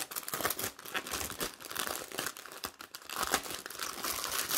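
Clear plastic bag crinkling and rustling in irregular crackles as hands handle a bundle of small bagged diamond-painting drills.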